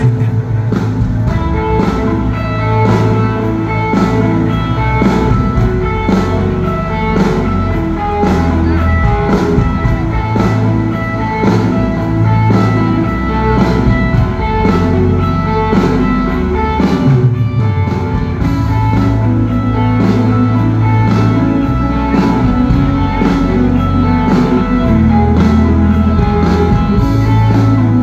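Live country rock band playing an instrumental passage: electric guitar over a steady drum-kit beat and bass, with a low note sliding down about two-thirds of the way through.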